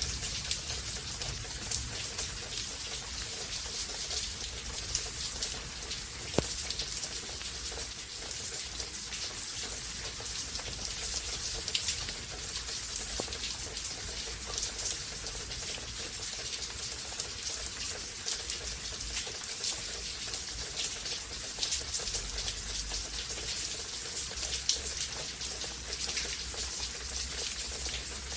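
Steady rain falling, a continuous hiss with many scattered drop taps close by, over a low rumble.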